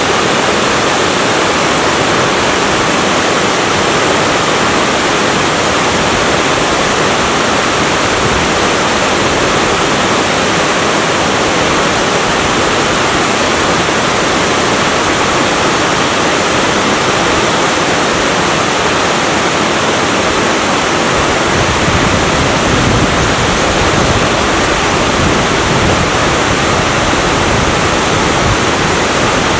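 Natural waterfall about 5 m high pouring over a rock face into a deep plunge pool: a loud, steady rush of falling water. A deeper rumble joins about two-thirds of the way through.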